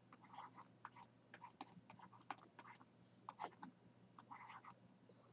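Faint, irregular ticks and light scratches of a stylus writing on a tablet, several small strokes a second with uneven gaps between them.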